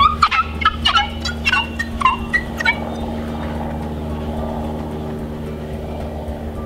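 Wet melamine sponge (Mr. Clean Magic Eraser) squeaking in quick strokes against windshield glass, stopping about three seconds in. The squeak is the sound of the glass coming squeaky clean as the eraser works it. A steady low hum runs underneath.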